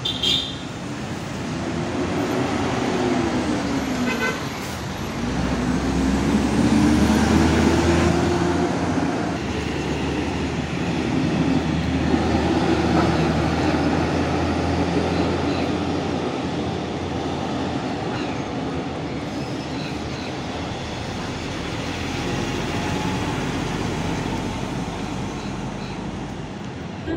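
City street traffic, with buses and cars driving past and their engines running. The engine pitch glides up and down as vehicles pass, and there is a short horn toot right at the start.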